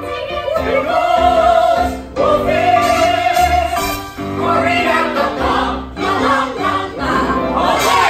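Cast of a stage musical singing a show tune together over musical accompaniment, holding long notes.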